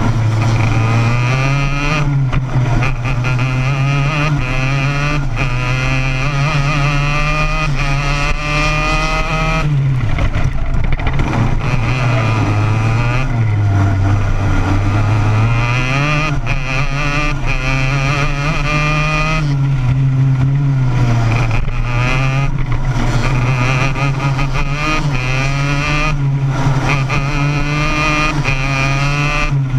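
Onboard sound of a racing kart's two-stroke engine at race pace. Its note climbs on the straights and falls away when the driver lifts for corners, with a deeper, longer drop about ten to fifteen seconds in.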